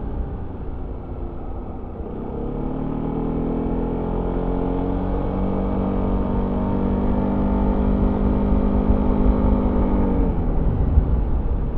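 Yamaha XMAX 300 scooter's single-cylinder engine through its stock exhaust, heard on board while riding. From about two seconds in the engine note rises gently and holds, then falls away near the end as the throttle closes, over a steady low rumble.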